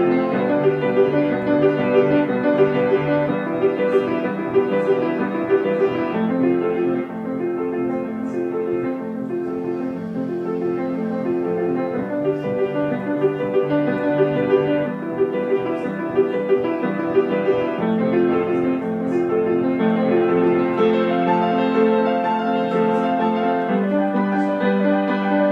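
Grand piano being played: a piece of sustained chords and broken-chord figures that change every couple of seconds.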